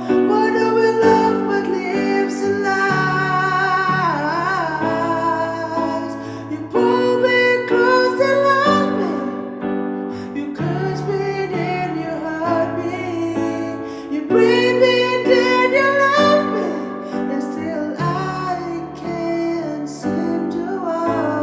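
A solo voice singing a melody with vibrato over steady chords from a keyboard or guitar accompaniment, as in an original pop ballad.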